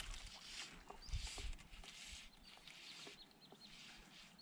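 Small bird calling repeatedly with short, high, falling chirps, a few a second, over a faint hiss, with a few soft knocks.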